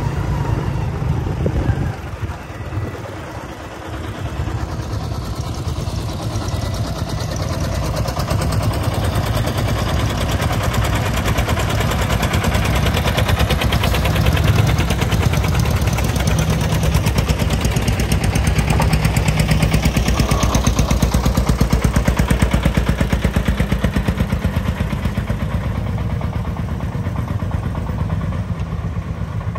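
Sand-laden công nông three-wheeled farm truck's diesel engine running under load with a fast, even knocking beat. It grows louder in the middle as the truck drives close by.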